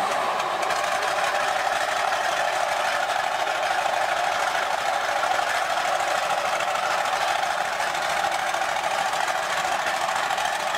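A tank's engine running steadily at idle, an even, unbroken engine drone.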